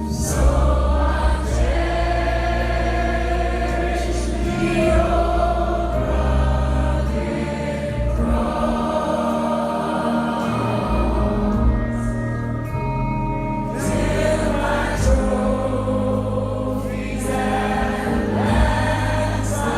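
Music: a song with a choir singing over sustained bass notes, in a gospel style.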